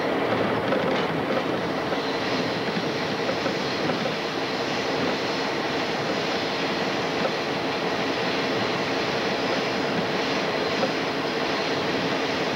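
Diesel locomotive moving along the track: a steady mix of engine drone and wheels on the rails, heard from aboard the locomotive.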